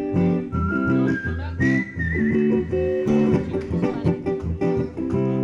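Acoustic guitar strummed live in a steady rhythm, with a high whistled melody gliding over the chords.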